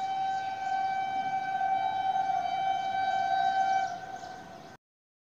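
Train horn sounding one long, steady note for nearly five seconds, easing a little near the end and then cutting off abruptly.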